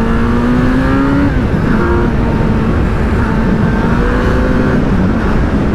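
Superbike engine on its stock exhaust, pulling under acceleration. Its note rises for about a second, breaks at a gear change, then holds at a steadier pitch. Heavy wind noise on the microphone.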